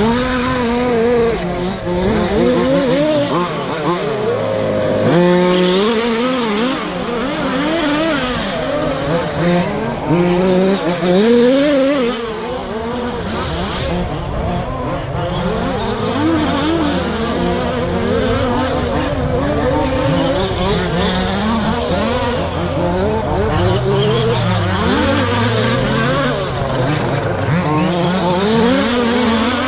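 Several radio-controlled short course race trucks lapping together, their motors rising and falling in pitch over and over as they speed up and slow for the corners.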